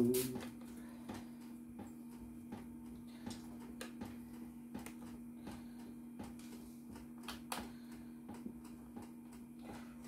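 Light, irregular clicks and taps of a screwdriver and fingers handling a laptop's plastic bottom case, over a steady low electrical hum.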